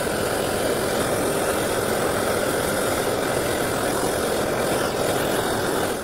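Handheld gas torch burning with a steady hiss that stops abruptly at the end. It is heating a solder-filled socket and burning grease off the end of a flex cable.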